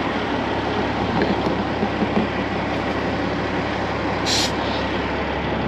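Heavy wrecker's diesel engine running steadily, a constant low drone under a wide rushing noise, with a short hiss about four seconds in.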